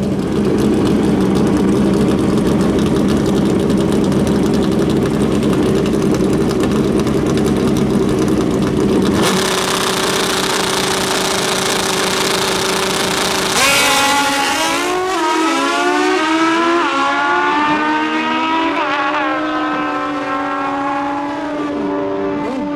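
Two drag-racing motorcycles on the start line, engines running steadily. About 14 seconds in they launch at full throttle, the pitch climbing and dropping back with each gear shift as they pull away, then fading down the track.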